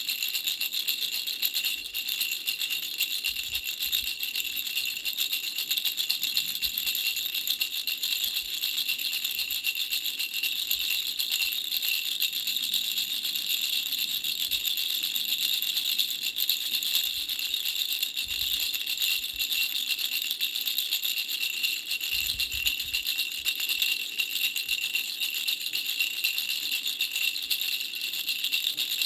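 Baby's three-flower bell rattle shaken without a break, a steady high-pitched jingling of its small bells.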